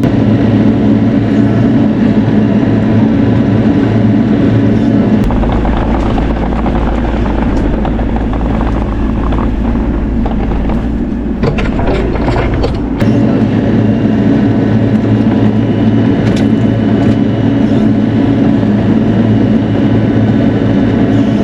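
Bobcat E42 mini excavator's diesel engine running steadily under working load. A deeper rumble joins for several seconds in the middle, and a short run of sharp cracks and knocks comes a little past halfway.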